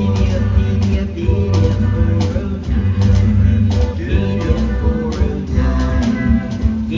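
Rock-and-roll band music from an animatronic showtape, with guitar over a steady beat.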